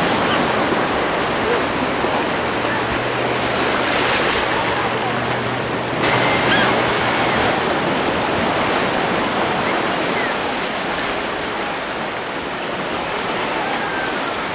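Small sea waves washing and lapping in shallow water at the shore, a steady rushing noise, with faint distant voices and children's calls of other bathers. The sound changes abruptly about six seconds in.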